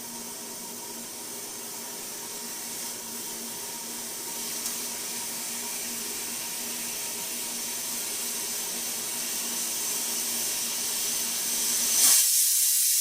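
Stovetop pressure cooker hissing steam from around its wobbling counterweight, the hiss slowly growing louder as pressure builds. About twelve seconds in, it breaks into its first whistle, a much louder, sharper blast of steam.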